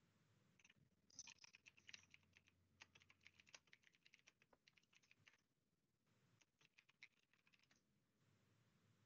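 Faint typing on a computer keyboard: a run of keystrokes lasting about five seconds, a pause of about a second, then a shorter run.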